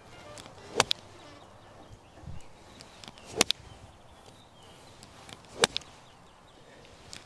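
Three golf shots hit with a short iron off the turf, each a sharp crack of the clubface striking the ball, about one, three and a half and five and a half seconds in; the first and last are each followed at once by a lighter click.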